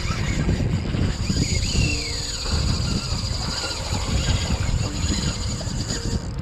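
Wind buffeting the microphone, an uneven gusty rumble, over water around a small boat, with a faint steady high hiss.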